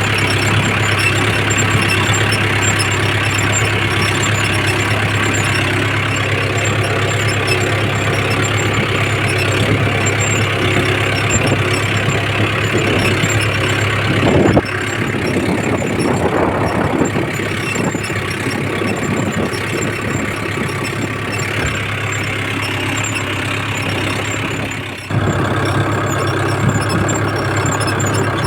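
Mahindra Yuvo 415 DI tractor's four-cylinder diesel engine running steadily while pulling a reversible plough through hard soil. The sound shifts abruptly about halfway through, dips briefly near the end, then returns.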